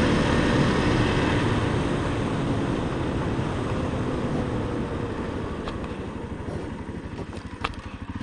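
Honda CRF250L's single-cylinder engine running on the road with heavy wind rush, heard through the microphone inside the helmet; the sound eases off gradually, the engine's low pulses standing out more as it slows.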